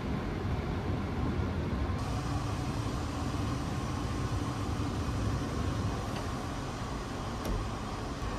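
Steady low rumble and hiss inside a railway passenger car, its equipment and ventilation running. A faint steady hum joins about two seconds in, and a single short click sounds near the end.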